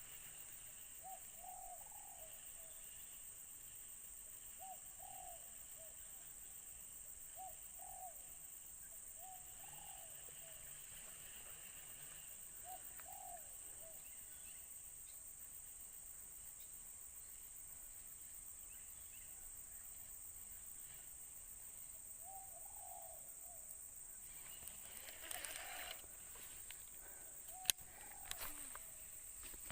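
A dove cooing in short phrases every few seconds over a steady high insect buzz. A few sharp clicks and a rustle come near the end.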